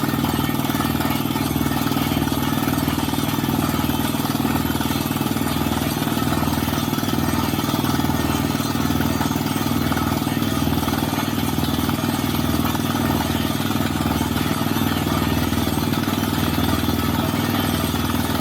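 Borewell drilling rig's engine running steadily, with a regular low throb repeating about once a second.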